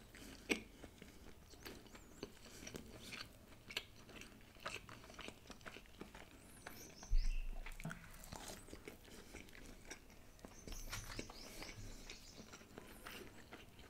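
Close-up chewing of a mouthful of egg paratha: soft, irregular wet mouth clicks and smacks. A dull thump about seven seconds in.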